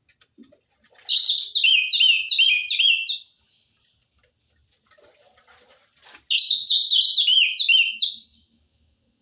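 Songbird singing two bursts of rapid, repeated high chirping notes, each about two seconds long, starting about a second in and again about six seconds in.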